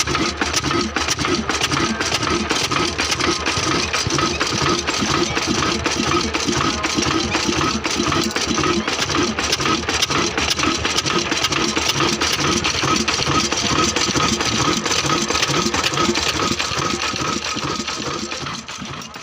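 Old Ruston Hornsby 22 HP stationary diesel engine running steadily with a rapid, even beat while driving a chakki flour mill, fading away near the end.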